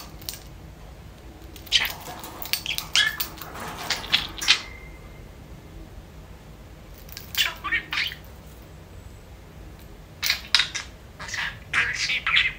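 Pet budgerigar chattering in three short bursts of quick chirps and clicks. It is mixed with clinking and one short ring from the small bell on its wooden cage swing toy.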